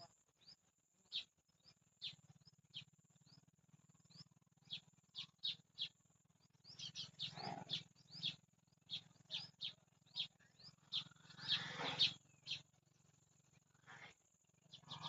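House sparrows chirping: many short, sharp cheeps with uneven gaps, bunching into busier runs of chirps around the middle and again near the end, over a faint steady low hum.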